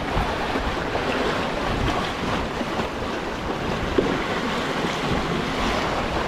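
Sea waves surging and breaking against concrete tetrapods of a breakwater, a steady wash of surf with wind buffeting the microphone. A short click about four seconds in.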